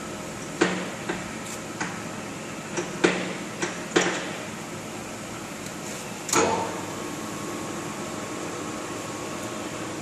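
Clicks and knocks of metal parts on a Mori Seiki MS-850 engine lathe being handled, about seven in the first four seconds, then a louder clank about six seconds in that rings briefly, over a steady hum.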